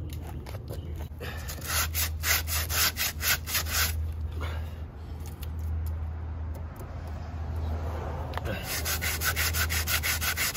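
Hardened expanding spray foam on a truck's rocker panel being cut back and sanded flush by hand, in quick rhythmic rubbing strokes of about five a second. The strokes thin out in the middle and pick up again near the end.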